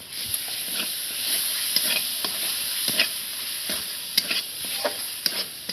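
Spice masala with ginger-garlic paste sizzling in a hot pan while being stirred, with a steady hiss and irregular scrapes and clicks of the spoon against the pan.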